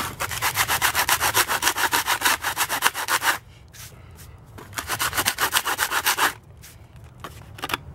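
Hand sanding of a freshly cast concrete surface: quick, even back-and-forth rubbing strokes, about five a second, flattening the spot where a longboard truck will mount. There is one long run of strokes, a pause of about a second, then a shorter run.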